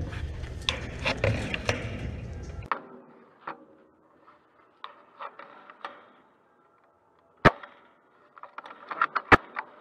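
Spring-powered bolt-action airsoft sniper rifle (Novritsch SSG24) being handled and fired. Rustling and low wind rumble stop abruptly about two and a half seconds in, leaving soft clicks, then a sharp crack about seven and a half seconds in. A quick run of clicks follows, then a second sharp crack near the end.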